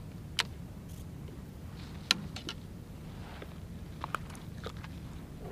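Sharp clicks and knocks of handling on a fishing kayak while a small fish is unhooked, the loudest about two seconds in. Under them runs a steady low rumble.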